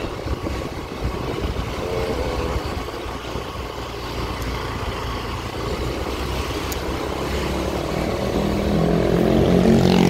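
Street traffic noise with a low wind-like rumble; near the end a motorcycle engine grows louder.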